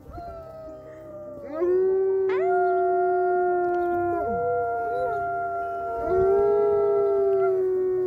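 Several wolfdogs howling together in chorus. Long, steady notes at different pitches overlap, each sliding up at its start and falling away at its end, with voices joining one after another through the first few seconds.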